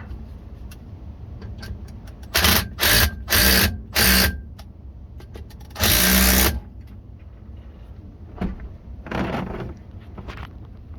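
Cordless power driver run in four short bursts in quick succession, then one longer burst, and a fainter one near the end: tightening the clamp screws of a no-hub coupling band on a cast-iron drain pipe.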